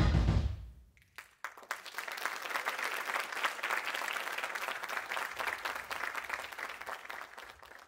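Recorded music ends on its final note within the first half second, then a theatre audience breaks into applause about a second in, many hands clapping steadily and tapering off near the end.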